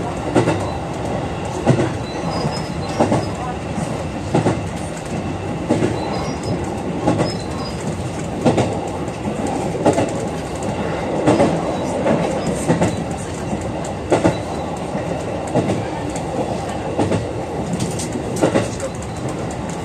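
JR 221 series electric train running, heard from inside the car behind the cab: a steady rumble with the wheels clacking over rail joints every second or so.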